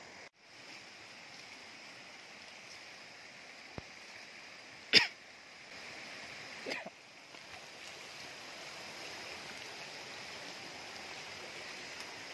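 Steady rush of a flowing river, with a brief sharp sound about five seconds in and a shorter cough-like sound a couple of seconds later.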